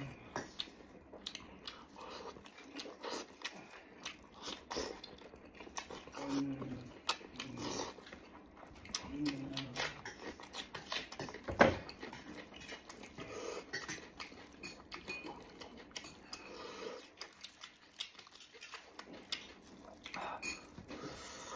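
Close-up eating sounds: wet chewing, lip-smacking and slurping as braised pork knuckle is torn apart with gloved hands and eaten, with a sharp click about halfway through.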